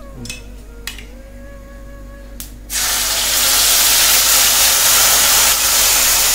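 Spiced yoghurt masala poured into hot oil in a nonstick kadai, setting off a loud, steady sizzle about two and a half seconds in. Before that there are only a few faint clicks.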